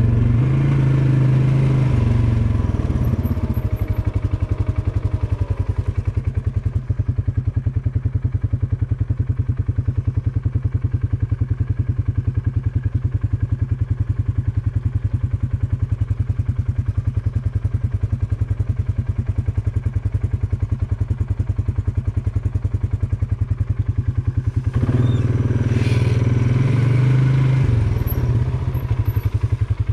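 ATV engine running at low speed with a steady pulse, easing off after the first couple of seconds, then picking up and revving louder for a few seconds near the end.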